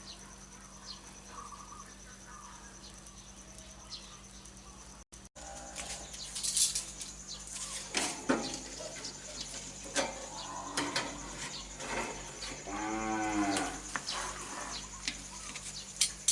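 A cow mooing once, a single call of about a second that rises and falls in pitch, about three-quarters of the way through, among scattered light clicks and knocks.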